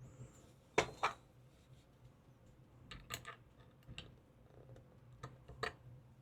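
Light clicks and taps of a digital force gauge being handled while its attachment is fitted, with two sharper clicks about a second in and more scattered clicks later.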